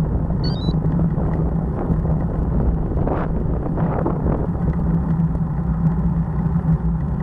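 Wind rumble and road vibration on a bicycle-mounted Cycliq camera rolling over rough, cracked asphalt: a steady low drone with a constant hum underneath. A brief high chirp sounds about half a second in.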